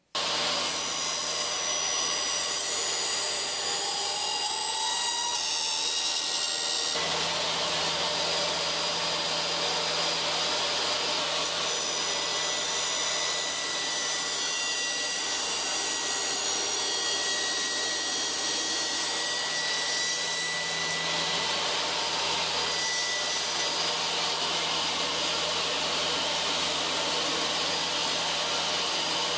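DeWALT table saw with a 24-tooth ATB blade running steadily while cutting a wooden tenon in a tenon jig. The saw noise starts suddenly and changes in tone about seven seconds in.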